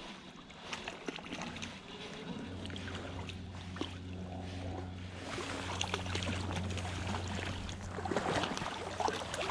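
Spinning reel being cranked with a steady low whir while a hooked brown trout is played in, with small clicks and light splashing of water.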